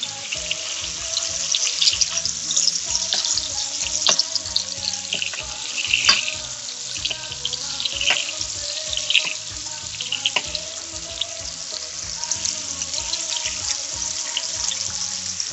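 Strip loin steaks frying in hot butter in a pan: a steady sizzle with scattered sharp pops and spatters.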